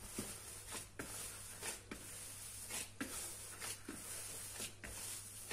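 Gloved hands punching down and kneading risen yeast dough in a plastic bowl, knocking the air out after its rise: faint, soft squishes and pats at an irregular pace of roughly one a second.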